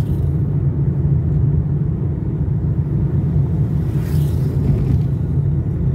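Steady low rumble of a car's engine and tyres on the road, heard from inside the cabin while driving at an even speed.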